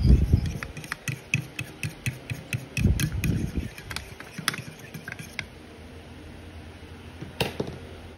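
Metal utensil clinking and scraping against a bowl in quick irregular ticks while cornstarch is stirred into water to make a thickening slurry, with dull low bumps at the start and about three seconds in. The clinking thins out over the last few seconds, with one sharp click near the end.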